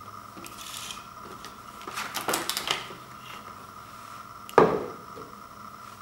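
Plastic microwave popcorn maker with a silicone lid being handled: a quick rush of clicks and rattles around two seconds in, then one loud thump about four and a half seconds in as it is set down on a wooden floor.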